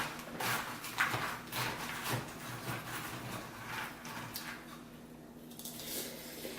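Crunchy cereal being eaten fast from a bowl: a run of short crunching, spoon-and-bowl sounds about twice a second, growing fainter after about four seconds.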